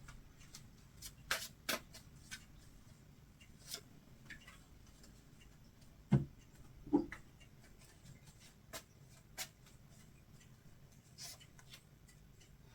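Tarot cards being handled, shuffled and drawn: scattered faint clicks and flicks of card stock, with two duller knocks on the table around the middle.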